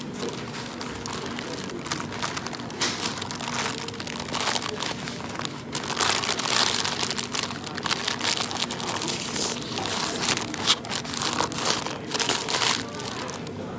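Brown paper wrapper being crumpled and folded by hand, a dense run of crinkles and rustles that grows busier and louder about halfway through.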